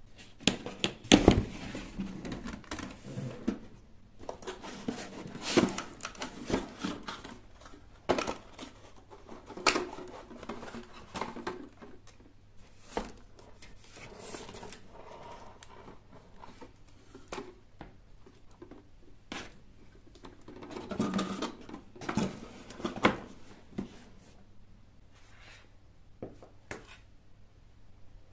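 Cardboard boxes and packaging handled during a laptop unboxing: irregular scrapes, rustles, flap sounds and light knocks, louder in spells and quieter toward the end, over a low steady hum.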